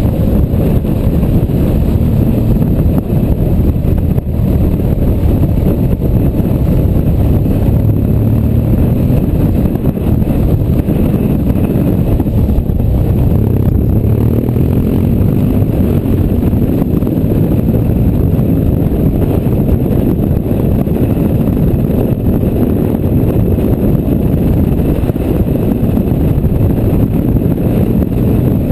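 BMW R1200GS boxer-twin engine running at a steady road speed, heard through a heavy, steady rush of wind on the camera microphone.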